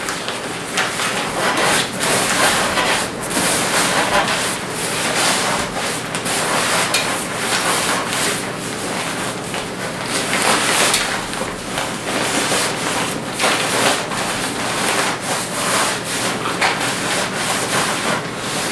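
Continuous rustling of synthetic fabric as a sleeping bag in its stuff sack is pushed and stuffed down into a bikepacking seat bag and its liner, irregular and without pauses.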